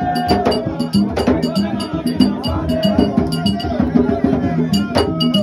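Rhythmic percussion music: steady drumming with a fast pattern of sharp clicks, with voices from the crowd over it.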